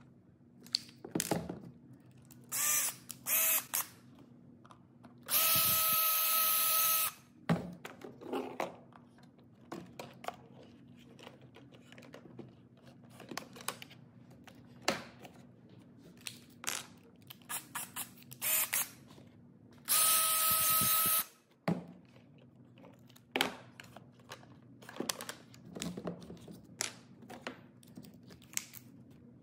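Makita cordless drill running in two steady bursts of about two seconds each, with a few short trigger blips before the first. Between the runs come scattered clicks and knocks as drill bits and the chuck are handled.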